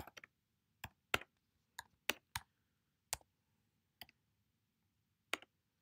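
Computer keyboard keys being tapped in slow, irregular keystrokes while code is typed, about ten separate clicks with pauses between them.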